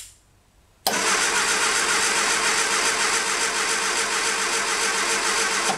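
A click, then about a second in the starter motor cranks a Triumph four-cylinder engine steadily for about five seconds, cutting off suddenly. The engine does not catch: not much life from it on this first attempt to start it after 26 years standing.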